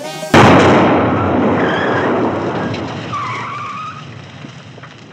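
An explosion: a sudden loud blast about a third of a second in, then a long noisy rumble that slowly dies away over the next few seconds.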